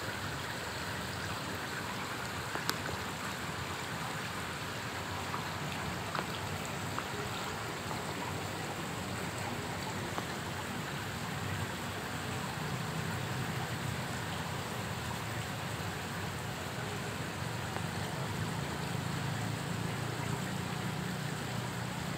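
Steady running and splashing water of a koi pond, with a few faint clicks.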